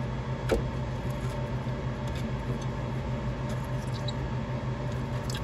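A steady low hum under faint scrapes and ticks, with a light click about half a second in, as a flathead screwdriver works a radiator's red plastic drain petcock to let the coolant out.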